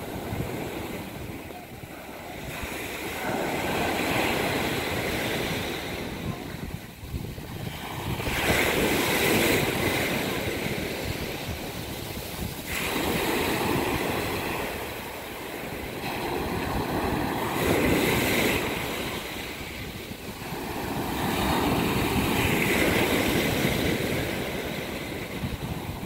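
Sea surf breaking on a sandy beach, each wave washing in and swelling then fading, about every four to five seconds.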